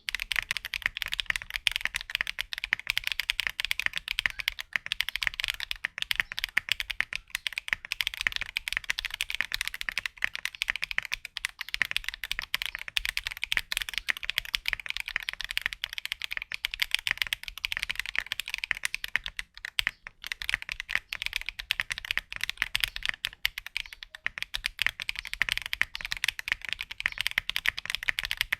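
Continuous fast typing on a mechanical keyboard fitted with Akko V3 Cream Blue Pro tactile switches, which give a clacky keystroke sound. The typing slackens briefly about twenty seconds in.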